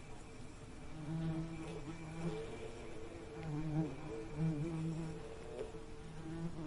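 Bee buzzing in flight, a low pitched hum that swells and fades in several passes, bending slightly in pitch as it moves about.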